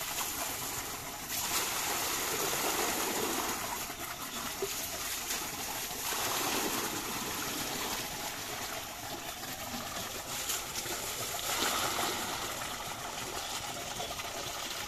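Water pouring and splashing steadily into a wheelbarrow tray of sand, flooding the sand to wash cricket eggs out of it.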